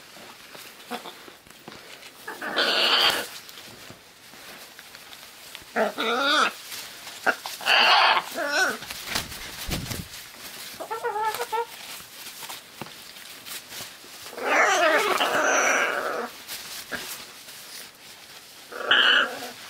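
Scarlet macaw making short calls with a wavering pitch, about six of them a few seconds apart; the longest comes about three-quarters of the way through.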